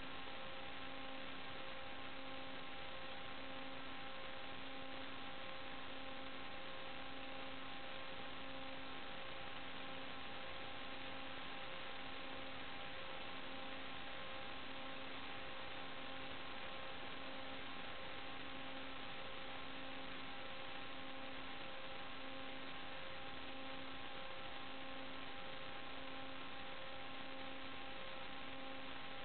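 Steady electrical hum over constant hiss, with a low tone that pulses on and off about once a second.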